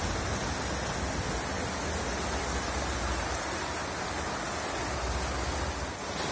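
Heavy rain pouring down on the sea and the boat, a steady even hiss.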